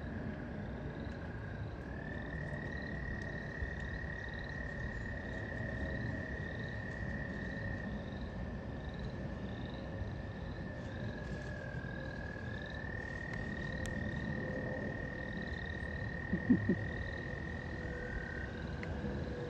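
Frogs trilling: one long, steady high trill that shifts slightly in pitch a few times, with fainter short calls repeating above it. A few brief knocks about 16 seconds in.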